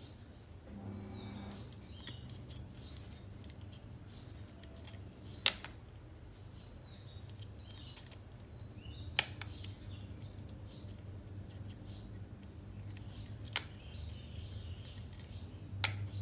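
Four sharp, single clicks a few seconds apart over a low steady hum, with faint bird chirps in the background.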